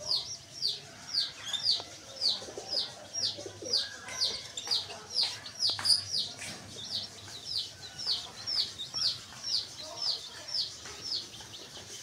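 A baby chick peeping over and over, each peep a short falling note, about two or three a second.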